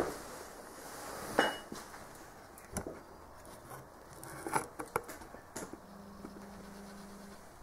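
Fire burning behind the closed glass door of a multi-fuel stove, crackling with a handful of sharp, irregular pops.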